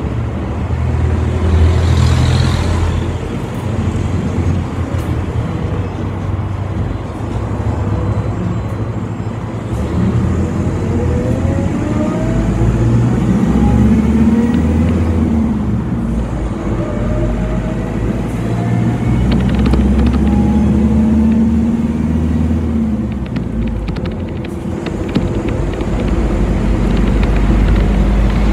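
City bus driving, heard on board: a steady low rumble of engine and road, with the engine note rising twice as the bus pulls away and speeds up. A few short knocks and rattles come near the end.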